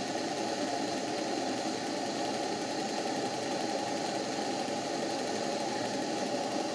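Model marine steam engine running steadily on about 20 psi of steam from its boiler, with its crankshaft-driven water pump working; the engine runs smoothly, which shows it is in good order.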